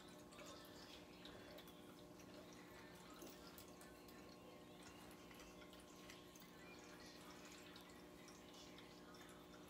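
Near silence: room tone with a faint steady electrical hum and scattered faint ticks.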